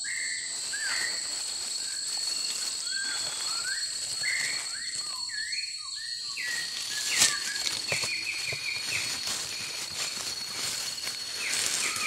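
Rainforest birds calling: short whistled notes, then quick runs of repeated notes, over a steady high drone of insects. A single sharp click about seven seconds in.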